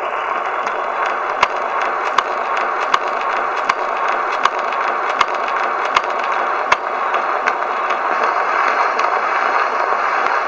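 Edison Diamond Disc phonograph playing the lead-in groove of a disc record: steady surface hiss through the acoustic horn, with a sharp click about every three-quarters of a second, once per turn of the 80 rpm disc.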